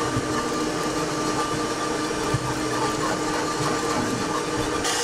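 Electric stand mixer running steadily, beating butter, sugar and eggs for a pie-crust dough.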